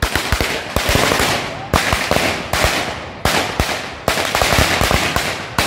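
Firecrackers going off on the ground: a run of sharp bangs in quick, irregular succession, about three or four a second, with hissing and crackling between them.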